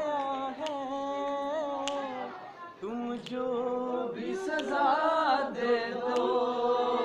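A group of young men singing a Hindi song together without instruments, drawing out long wavering notes; one phrase trails off about two and a half seconds in and a new one starts half a second later.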